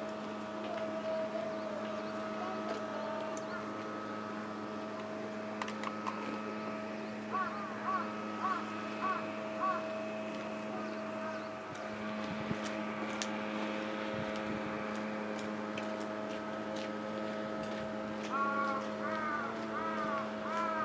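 A crow cawing in two runs of about five caws each, one about a third of the way in and one near the end, over a steady mechanical hum.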